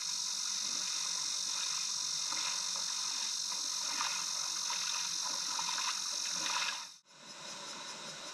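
Steady rush of flowing stream water, a bright hiss with faint small splashes through it. It cuts off abruptly about seven seconds in, and a quieter steady rush follows.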